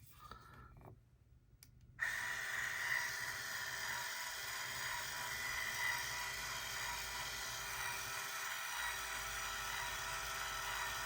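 ASOFTY electric salt and pepper mill's small grinding motor whirring steadily. It switches on abruptly about two seconds in and runs its 10-second timed grinding cycle.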